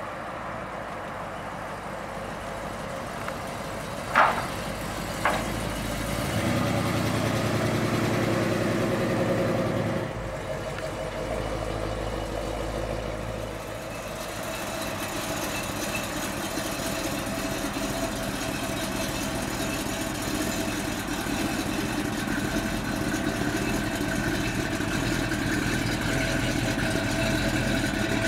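The 1972 Chevrolet Chevelle's 454 big-block V8 running, with two sharp knocks about four and five seconds in. The engine is louder for a few seconds after the knocks, then settles into a steady idle.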